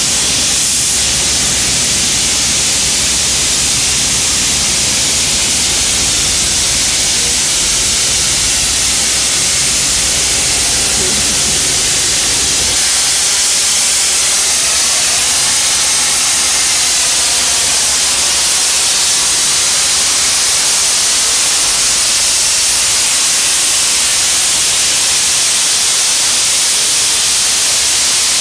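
Metropolitan Railway No. 1 steam tank locomotive standing with steam hissing loudly and steadily. A low rumble underneath drops away about halfway through.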